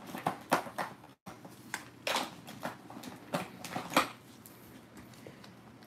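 A run of light clicks, taps and rustles from small plastic jars and a glitter tube being handled by nitrile-gloved hands, most of them in the first four seconds.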